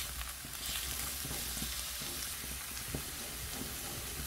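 Diced onions sizzling as they are lightly sweated in a cast-iron skillet, stirred with a wooden spatula that scrapes across the pan now and then.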